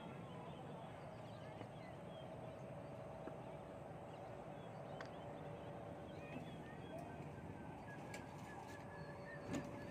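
Faint outdoor ambience: a steady wash of background noise with faint bird chirps and a thin steady hum, and a short knock near the end.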